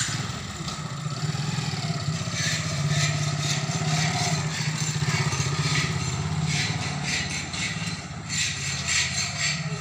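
Small motorcycle engine running steadily as the bike pulls away towing an empty metal cart-trailer, which rattles and clatters over the paving now and then.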